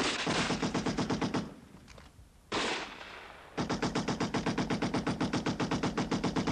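Machine gun firing long, rapid, evenly spaced rounds. The firing stops about a second and a half in, a single louder shot rings out about a second later, then the rapid fire starts again and keeps going.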